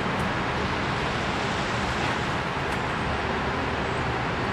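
Steady, even rushing background noise, like road traffic, with no distinct knocks or voices.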